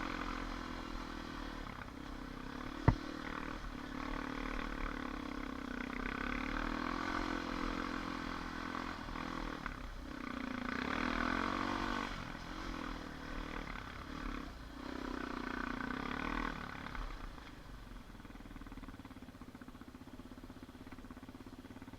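ATV engine running under changing throttle, its pitch rising and falling as it rides, with one sharp click about three seconds in. It settles quieter and steadier for the last few seconds.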